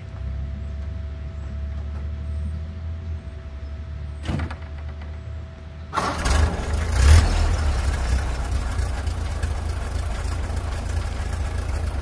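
1929 Ford Model A's four-cylinder flathead engine being started: a low rumble with a click a little past four seconds in, then about six seconds in the engine fires and keeps running steadily, heard from the rear by the exhaust.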